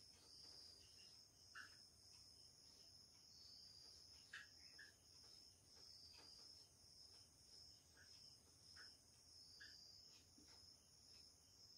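Near silence: faint steady high chirring of crickets, with a few faint short squeaks and ticks from a marker writing on a whiteboard.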